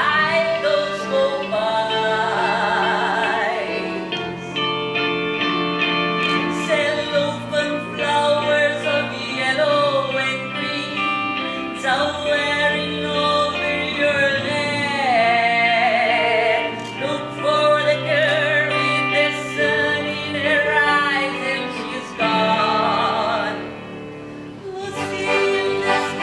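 A woman singing a stage-musical song with wide vibrato on long held notes, over live instrumental accompaniment.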